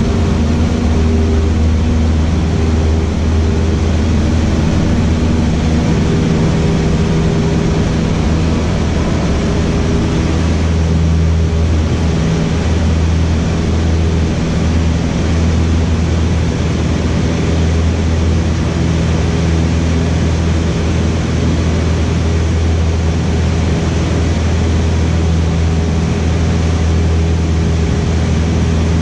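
Cessna 152's four-cylinder Lycoming O-235 engine and propeller running steadily at takeoff power through the takeoff roll and climb-out, heard from inside the cockpit as a loud, unbroken drone.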